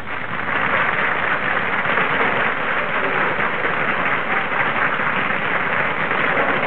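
Audience applauding: a dense, steady wash of clapping right after the music stops, heard on a narrow-band 1941 film soundtrack.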